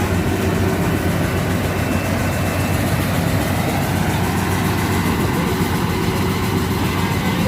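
Yanmar AW82V combine harvester's diesel engine running at a steady pace, a constant low drone.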